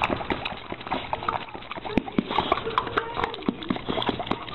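A dog drinking at a stream of water, lapping and gulping in a quick, irregular run of wet clicks.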